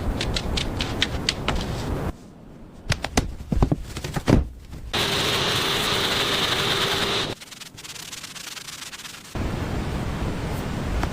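Sanding and scraping on a boat hull in short, abruptly cut segments, with sharp knocks in between. For about two seconds in the middle, a power sander runs steadily with a constant hum and a high whine.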